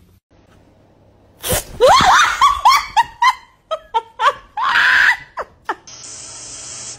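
A person shrieking and laughing in a quick run of short, loud bursts, starting about a second and a half in. Near the end a spray can starts hissing in a steady jet.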